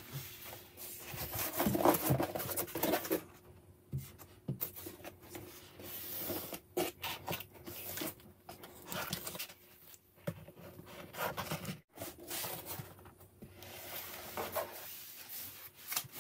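A large cardboard connector frame handled on a tabletop: the cardboard slides, rubs and scrapes against the table in irregular bursts, with light knocks as it is lifted and set down.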